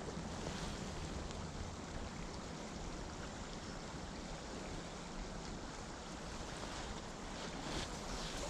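Steady rushing of a flowing chalk stream, with a low rumble underneath.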